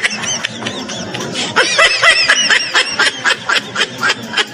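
High-pitched snickering laughter in quick, short bursts, with rapid little clicks mixed in.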